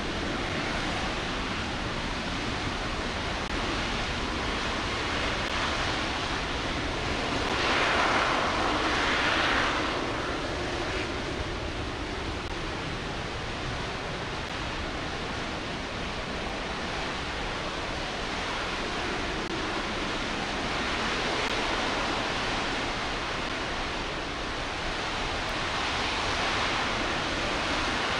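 RS-25 liquid-hydrogen rocket engine firing in a static hot-fire test: a steady, even rushing noise with no tones in it. It swells louder about eight seconds in and again more gently near the end.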